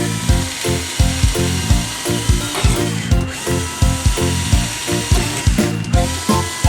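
Background music with a steady beat, over a continuous high hiss of a power tool that cuts out briefly twice.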